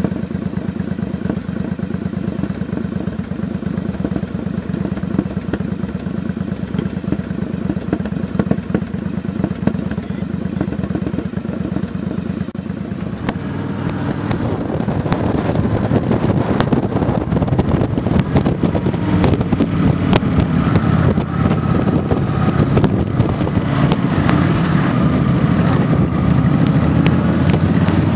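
Motorcycle engine idling with a steady low pulse. About halfway through it gets under way and rides, louder, with wind rush and the engine pitch rising and falling.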